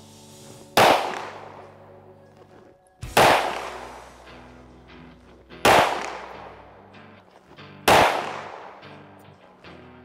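Springfield Armory Echelon 9mm pistol fired four times in slow, deliberate succession, a shot every two seconds or so, each crack trailing off in a long echo.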